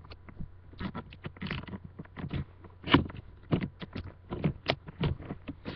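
Plastic CD case clicking and scraping under the fingers as a paper insert is worked out of it, in quick irregular clicks, with one sharp click about three seconds in.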